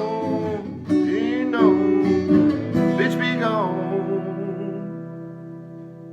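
Song ending: a singer holds the last sung notes over a strummed acoustic guitar, then the final chord rings on and slowly fades out.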